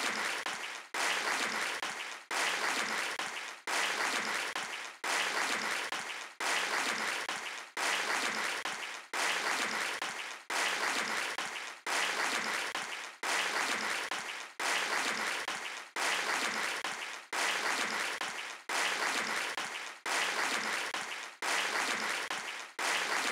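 Audience applause, dense and even, cut into identical short stretches that repeat with a brief break about every second and a quarter, like a looped clip of clapping.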